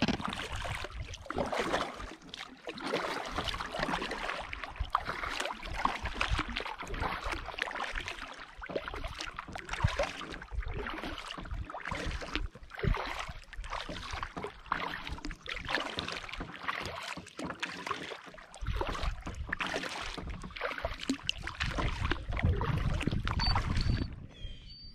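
Kayak paddle strokes splashing in lake water, with water sloshing against the plastic hull in an irregular, continuous wash. A low rumble of wind on the microphone comes and goes, strongest near the end.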